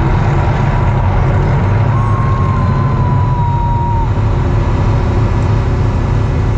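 Loud, steady low rumble, with a thin whistle-like tone that drifts slightly down in pitch for about two seconds in the middle.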